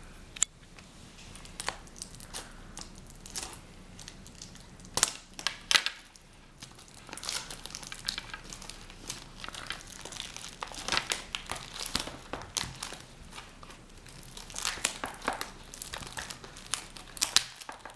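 Plastic shrink-wrap on a sealed box of trading cards being torn and peeled off by hand, crinkling and crackling. A few separate clicks come first, then the crinkling comes and goes, busiest in the middle and near the end.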